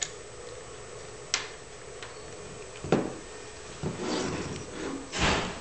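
Handling noises from a camcorder and its fiber-optic adapter being worked on with a small screwdriver and moved around: a few sharp clicks of hard plastic and metal, then rustling and a louder knock near the end.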